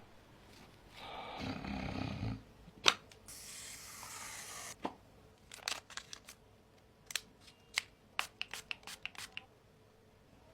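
A man snores once, about a second in. Then comes a short tearing hiss and a run of small clicks and crinkles as a face-mask packet is torn open and handled.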